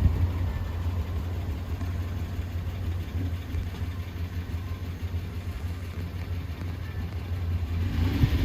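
Toyota Land Cruiser 80 gasoline engine idling steadily with a low hum, growing a little louder near the end.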